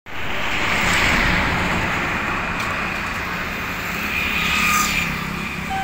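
Road traffic noise: a motor vehicle's engine hum under a loud rushing, swelling about a second in and again near the end.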